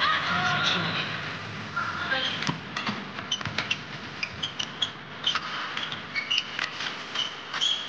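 Badminton rally: sharp clicks of rackets striking the shuttlecock in quick, irregular exchanges starting about two seconds in, mixed with short squeaks of players' shoes on the court mat, over steady arena crowd noise.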